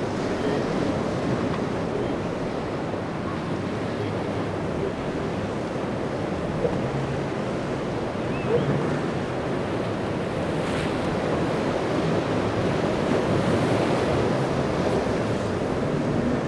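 Rough surf washing and breaking in an ocean inlet, with wind rushing over the microphone as a steady noisy roar.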